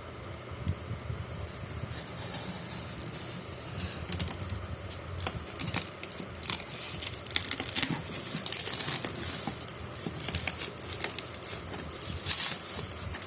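Packaging being torn open and crinkled by hand: irregular rustling and tearing with scattered sharp clicks, growing busier after the first few seconds.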